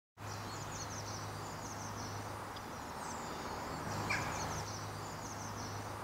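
Outdoor ambience: small birds chirping in repeated short trills over steady background noise and a low hum.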